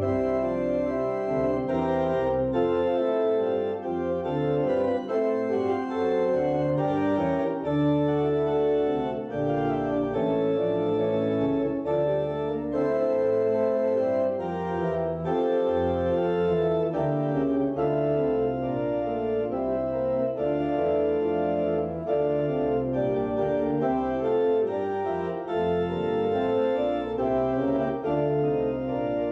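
Organ playing a postlude: sustained chords that change steadily over deep held bass notes.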